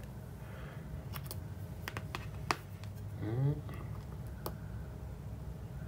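A handful of short, sharp clicks and taps, spread over the first few seconds, from multimeter test probes and leads being handled against a transformer's terminals, over a steady low hum.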